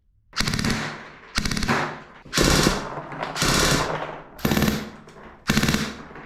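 Airsoft electric pistol (AEP) firing six short full-auto bursts, about one a second, each a fast rattle of shots.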